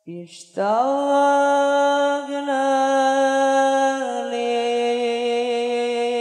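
A single voice sings one long, unaccompanied held note of Islamic sholawat chanting. The voice slides up into the note about half a second in and holds it with a slight wobble, dropping a little in pitch twice.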